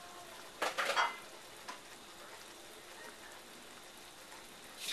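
Chicken stew simmering and sizzling in a wide metal pan on the stove, a steady faint crackle, with a brief clatter a little under a second in.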